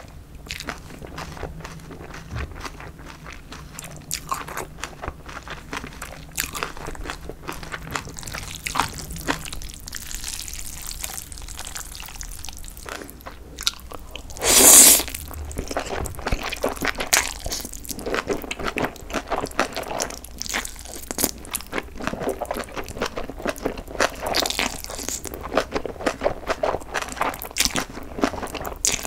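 Close-miked chewing of chewy jjolmyeon noodles with crunchy bean sprouts, a dense run of wet clicks and crunches. About halfway through comes one loud slurp of noodles lasting about a second.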